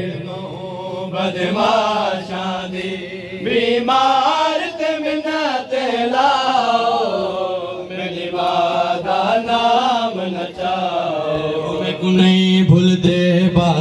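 A man's voice chanting a noha, a Shia mourning lament, amplified through a microphone. It is sung in long, wavering, ornamented lines that rise and fall slowly.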